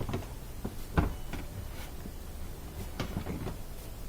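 Dishwasher drain assembly part being handled and fitted back into place: a sharp knock about a second in, then a few lighter clicks around three seconds in as it is locked in.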